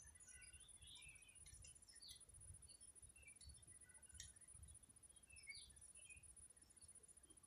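Faint chirping of small birds: many short, high chirps, several falling in pitch, coming irregularly and overlapping.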